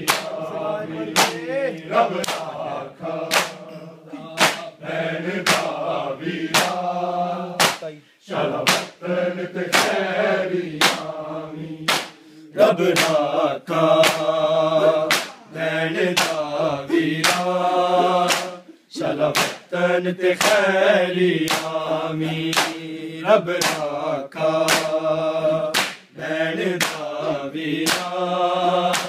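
A group of men chanting a noha (Shia lament) together, line by line with short breaks between lines, over the sharp, even slaps of matam chest-beating, about two a second.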